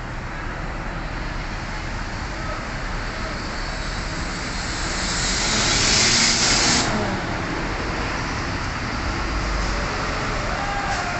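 Idling bus engines with a steady low rumble. About five seconds in, a loud hiss of compressed air from a bus's air system builds and cuts off sharply under two seconds later.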